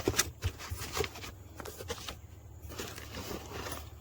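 Packaging being handled as a chainsaw is unboxed: a few short knocks and rustles of cardboard and plastic, busiest in the first second or so, then softer rustling.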